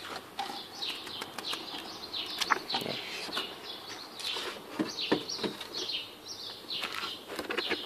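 Small birds chirping over and over in short falling chirps, with light rustles and knocks of paper and cardboard being handled; the sharpest knock comes about two and a half seconds in.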